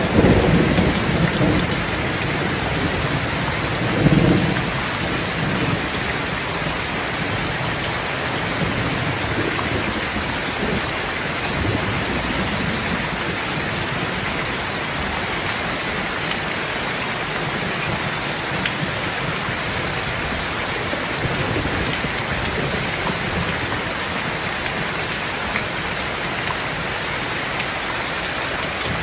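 Heavy, steady downpour of rain with low rumbles of thunder, loudest in the first couple of seconds and again about four seconds in, then fainter ones now and then.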